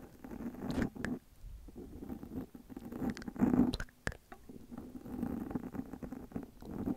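Close-miked ASMR trigger sounds: soft, irregular wet clicks and low rustling right at the microphone, with a louder cluster of clicks about halfway through.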